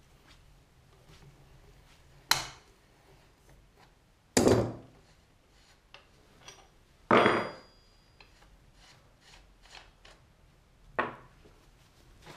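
A hand spanner and metal parts knocking at a pit bike's rear axle: four loud, sharp knocks a few seconds apart, one with a brief metallic ring, and faint small clicks in between.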